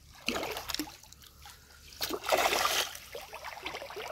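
A small fish splashing and thrashing at the surface of shallow water beside a keep net: a short splash just after the start and a louder, longer one about two seconds in.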